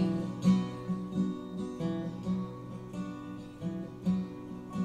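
Acoustic guitar playing a short instrumental passage of chords between the sung lines of an acoustic pop song, reproduced through Focal Kanta N°1 hi-fi loudspeakers.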